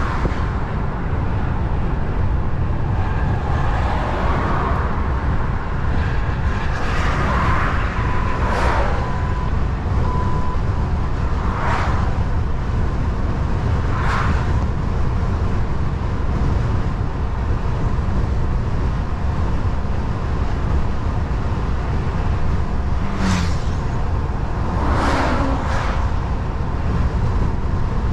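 DAF XF truck driving along a road: a steady low rumble of engine and road noise, with several other vehicles going past, each a brief whoosh.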